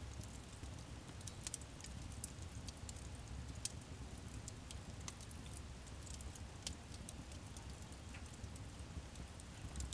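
Wood fire burning in a fireplace, with scattered small crackles and pops over a low steady rumble.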